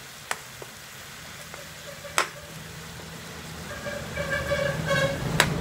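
A metal ladle clinks sharply against an aluminium wok three times: just after the start, about two seconds in, and near the end. From about three seconds a low engine rumble builds, with a horn-like honking tone for about a second and a half near the end.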